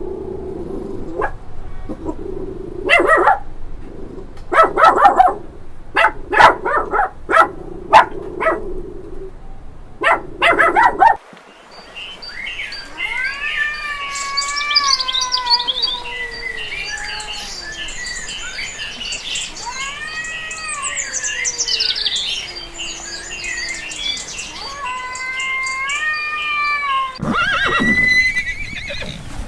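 A run of animal calls in two edited segments: first, short loud calls over a steady hum; then, after an abrupt cut, about fifteen seconds of many overlapping rising-and-falling calls.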